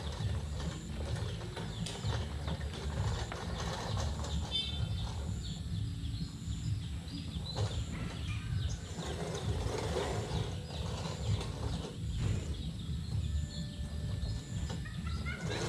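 Manual reel push mower whirring and clattering as its blades spin through the grass, swelling and fading every few seconds with each push.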